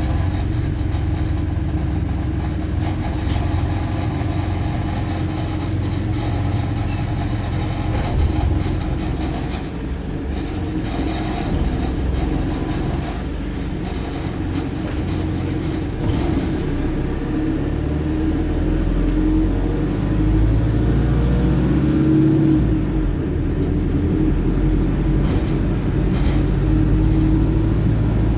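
Wright StreetLite Euro 6 single-deck bus heard from inside the cabin while moving: a steady engine and road drone, with a drivetrain whine that rises in pitch about two-thirds of the way through as the bus accelerates.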